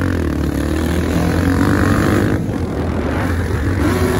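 Motocross dirt bike engines revving and easing off as riders go over a jump, the engine pitch rising and falling.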